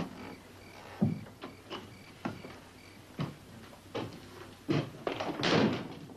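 Footsteps and knocks on wooden boards, irregular, about one a second, ending in a louder scraping rustle near the end.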